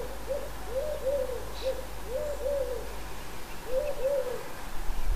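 Wood pigeon cooing: about eight low coos, mostly in pairs, with a pause before the last pair near the end.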